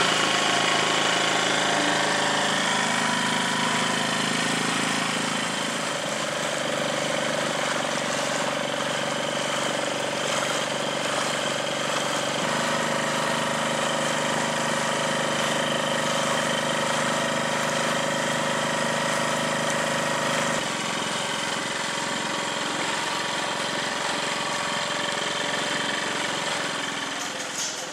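Small outboard motor on an inflatable dinghy running steadily, with a hum whose pitch steps slightly a few times.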